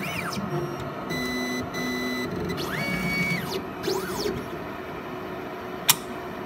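Stepper motors of a PATHFAST analyzer driving its pipette tips: several short whines that rise, hold and fall in pitch, with about a second of steady whine in between, over a constant machine hum. A single sharp click comes near the end.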